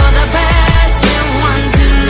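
Pop song on the soundtrack between sung lines: sustained bass and layered instruments, with deep bass-drum hits that drop in pitch.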